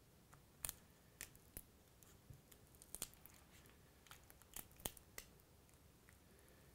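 Battery adhesive in an iPhone 4 crackling as a nylon spudger pries the battery up from the midframe: about ten faint, irregular sharp clicks and snaps, the loudest about a second in and near five seconds.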